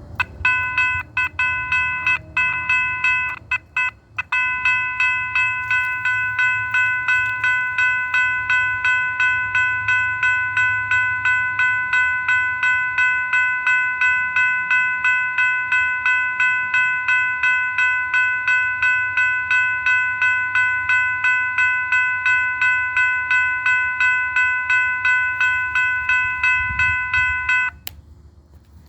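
Railroad crossing bell ringing rapidly, about three strikes a second. It starts in fits, cutting in and out for the first few seconds, then rings steadily and stops suddenly near the end.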